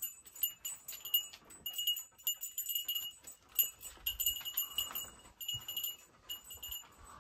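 Metal tags on a dog's collar jingling in short, irregular bursts as the dog moves about.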